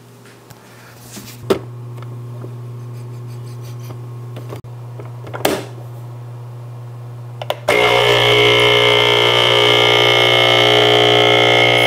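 Hotel coffee maker: a few clicks over a faint steady hum, then about eight seconds in its pump switches on abruptly and buzzes loudly and steadily as it starts brewing.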